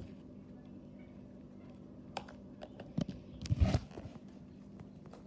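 Handling noise: a few light clicks and a brief louder rustling thump about three and a half seconds in, over a steady low hum.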